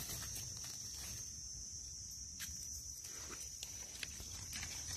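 Steady high-pitched insect drone, with a few faint rustles and ticks of dry leaf litter as hands dig a mushroom out of the ground.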